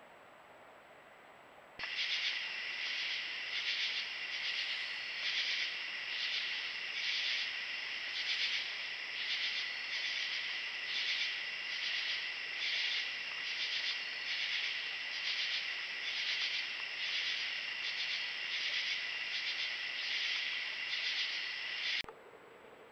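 A chorus of night insects, loud and high-pitched, pulsing steadily a little more than once a second; it starts abruptly about two seconds in and cuts off suddenly near the end.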